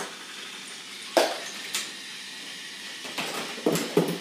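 Plastic toy dominoes and balls of a Rube Goldberg machine knocking and clattering as the chain reaction runs: a sharp clack about a second in, another shortly after, then a quick run of clicks near the end.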